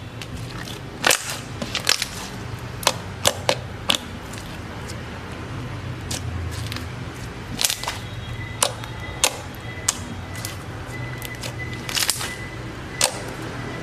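Slime being squeezed and poked by hand, giving off sharp, irregular pops and clicks, several in quick clusters and others spaced a second or more apart.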